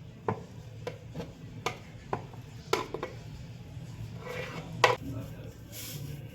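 Kitchen utensils knocking and clinking against a bowl and sieve while grated coconut is strained for coconut milk: about eight sharp knocks at irregular intervals, the loudest about five seconds in.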